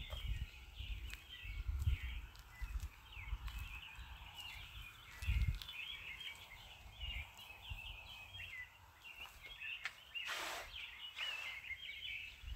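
Outdoor ambience of many birds chirping on and on, with uneven low rumbles underneath and two short hissing bursts near the end.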